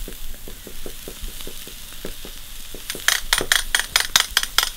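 Skirt steak sizzling on the grate of a charcoal kettle grill: a steady hiss with small crackles. Near the end comes a quick run of about ten loud, sharp clicks.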